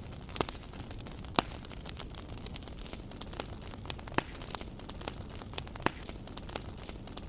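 Campfire crackling: irregular sharp pops and snaps of burning wood, the loudest about a second and a half in, over a steady low background.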